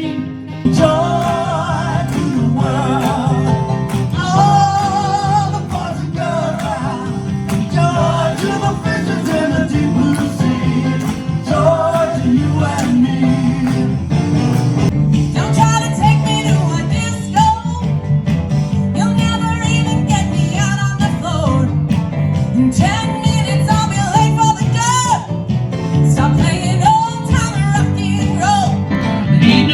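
A singer with a band performing a 1970s pop-rock hit: sung melody over guitar and a steady beat.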